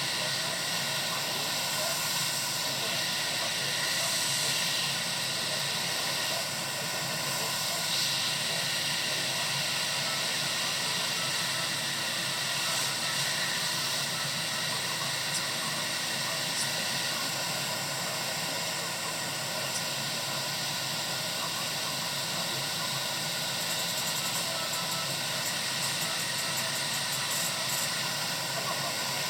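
Steady airflow hiss of a hot air rework station blowing.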